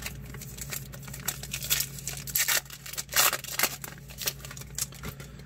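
A trading-card pack wrapper being torn open and crinkled by hand, in irregular crackling bursts.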